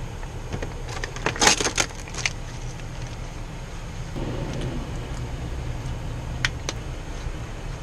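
Steady low rumble with a quick cluster of metallic clinks and jangles about a second and a half in, and two lighter clicks near the end.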